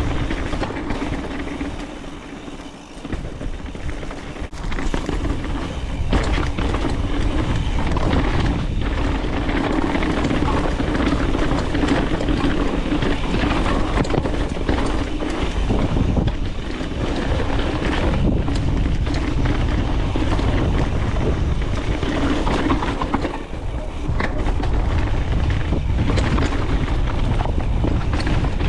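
Mountain bike descending a rough trail: tyres rumbling over dirt and rock, the bike rattling, and wind buffeting the microphone. The noise drops off briefly twice, about two to three seconds in and near the end.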